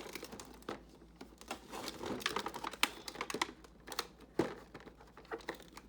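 Irregular clicks and crinkles of plastic packaging being handled and opened to get a small toy out of an advent calendar compartment.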